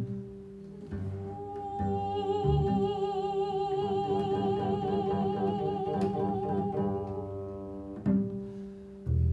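Solo double bass music: low notes plucked one after another, with a held, wavering higher note sounding over them from about a second in until about seven seconds in.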